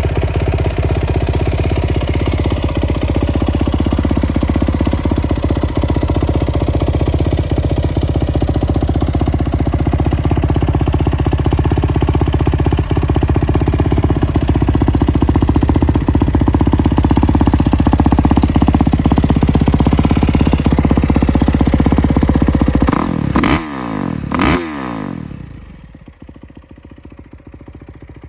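2022 Kawasaki KX450's single-cylinder four-stroke engine, running on a Vortex ECU, idles steadily for over twenty seconds. Near the end it gives two quick throttle blips, then the engine is shut off and the sound drops away.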